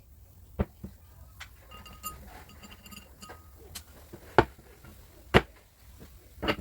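Metal parts knocking and clicking as they are handled: four sharp knocks spread over the few seconds, with faint brief ringing between the first ones.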